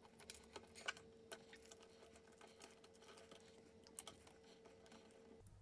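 Near silence with a few faint, scattered clicks and ticks of hands handling Cat6 network cable as the cores are worked loose. A faint steady hum stops near the end.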